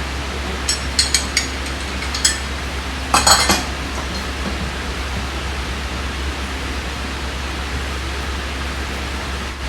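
A few sharp metal clinks from wheel-swap hardware, lug nuts and tools being handled, with the loudest short cluster about three seconds in, over a steady hum and hiss.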